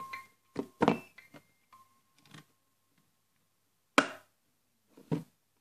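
Wind-up music box in a jewellery box plinking its last few sparse notes, one high note ringing on for about a second before fading. Knocks and a sharp click from the box being handled, the loudest click about four seconds in.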